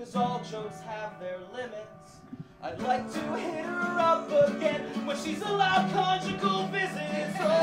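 Acoustic guitars strummed under a man singing a song; the playing becomes louder and fuller about three seconds in.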